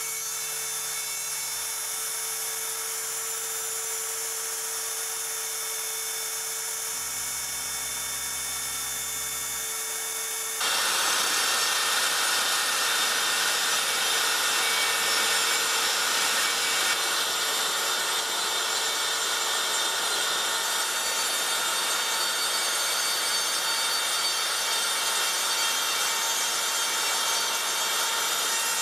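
CNC router spindle running with a steady high whine while its small bit drills holes in plywood. About ten seconds in, the sound jumps suddenly louder and harsher as the bit routes a slot through the plywood, a steady cutting noise.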